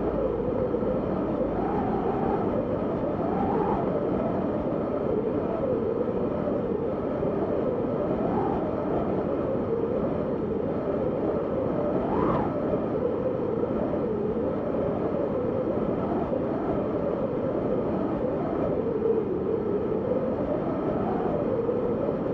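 Snowstorm wind howling: a steady rush with a wavering whistle that rises and falls with the gusts, one sharper gust climbing to a peak about twelve seconds in.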